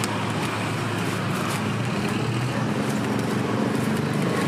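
Steady street traffic noise: a continuous low engine hum from passing vehicles with a roadway haze over it, and a few faint ticks.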